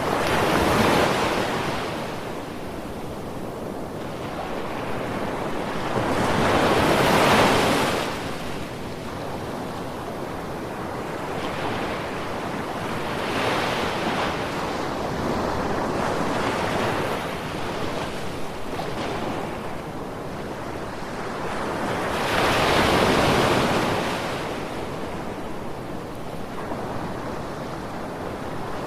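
Ocean surf: waves break and wash in as slow surges of rushing noise, loudest about a second in, around seven seconds and around twenty-three seconds, with a lower steady hiss between them.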